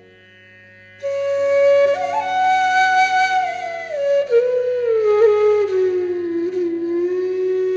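Background music: a slow solo melody, entering about a second in and drifting gradually downward in pitch over a steady drone.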